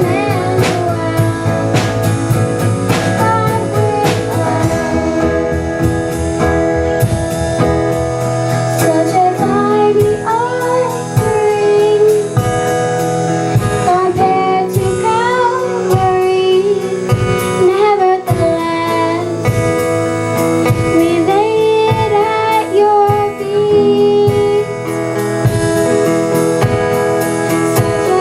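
Band playing a song, with singing over guitar and a drum kit keeping a steady beat.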